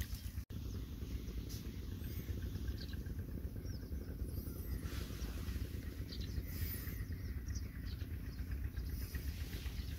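Steady low rumble with faint, high bird chirps every couple of seconds.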